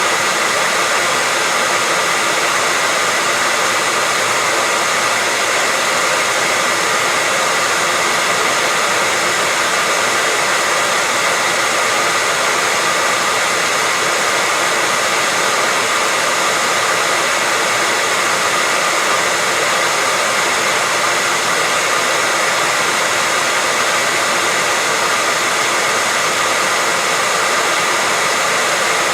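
Hair dryer running steadily: a constant, even rushing of air with a faint steady whine in it.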